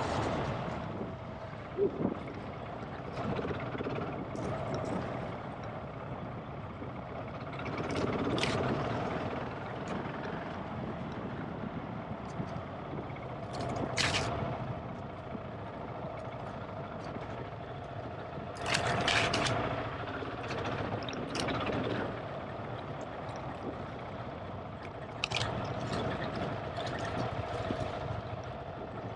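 GasGas ES700's single-cylinder four-stroke engine running while the enduro bike is ridden along a trail, getting louder for short stretches several times.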